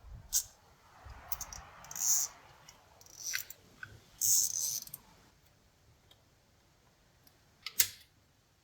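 Scattered sharp clicks and short scraping rustles of hands working wire and small hardware, with one sharp click near the end.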